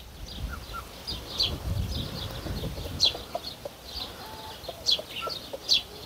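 Farmyard poultry chirping and clucking: many short, high chirps repeating irregularly, a few every second.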